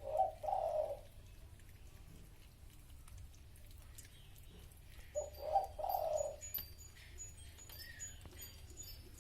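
A dove cooing: two low, soft phrases about five seconds apart, one at the start and one about five seconds in, with faint high bird chirps behind.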